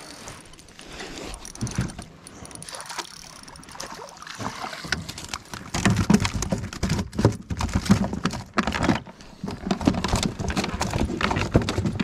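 Gear knocking and clattering on a plastic fishing kayak as a smallmouth bass is reeled in and netted. Scattered knocks at first, then dense, irregular clattering and rustling from about halfway through.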